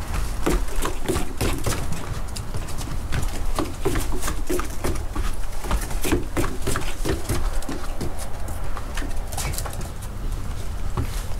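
Footsteps and a toy poodle puppy's paws on a wooden deck: a quick, irregular run of taps and knocks on the boards as a person in sneakers steps about and the puppy scampers around.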